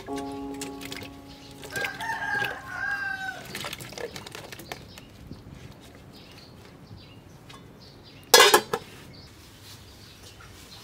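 A rooster crowing once, about two seconds in, over light knocks of cut taro pieces being set into a metal pot. A single loud, sharp clatter comes about eight seconds in.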